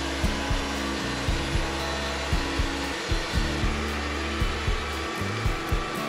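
Wood-Mizer LT40 portable band sawmill running with a steady whir as it cuts a western red cedar log, under background music with a steady beat.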